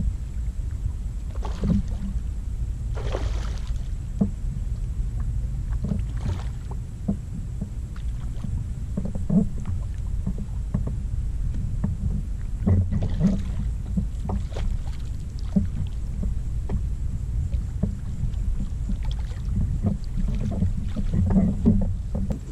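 Kayak-mounted action camera picking up a steady low wind rumble, with scattered knocks and bumps on the kayak while a hooked redfish is fought on a fly rod and netted. A few short hissing bursts, the clearest about three seconds in.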